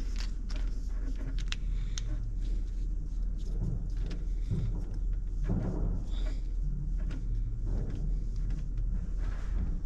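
Small plastic clicks and handling rustle from a solar cable plug being pushed together and fitted onto a red cable, over a steady low hum.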